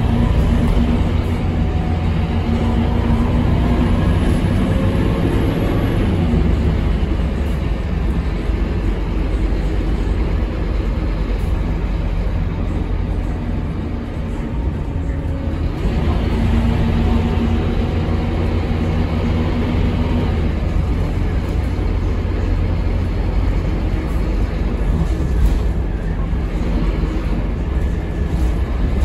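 Scania K230UB bus's rear-mounted Scania DC9 diesel engine running under way, heard inside the rear of the cabin as a steady low drone with an engine note that rises and falls. The engine eases off briefly about halfway through, then its note climbs again.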